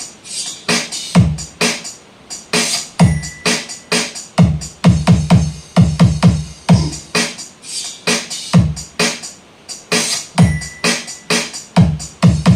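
Electronic dance remix with a punchy drum-machine beat and synth, played loud through a homemade box with two 6.5-inch speakers.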